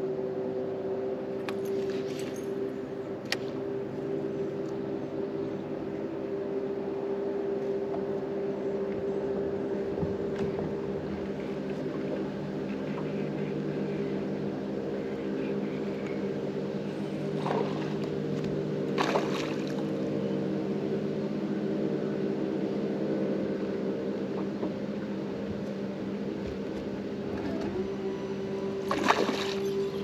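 Electric trolling motor running at a steady speed, a constant multi-pitched hum. A few brief clicks and rattles sound over it, the loudest near the end.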